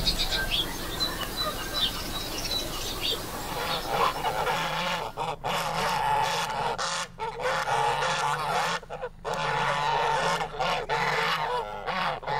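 A flock of domestic geese honking over and over, the calls starting about four seconds in and running on with short breaks; only faint high chirps are heard before that.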